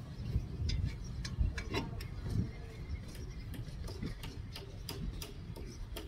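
Light, irregular metallic clicks and ticks, a few each second, from tools working at the front brake caliper as its bolt is put back in.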